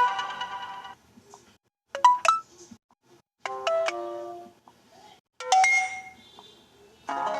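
Samsung Galaxy J2 on the Viper OS custom ROM playing its notification tones one after another: about four short electronic chimes, each a different quick run of notes, with short silent gaps between them.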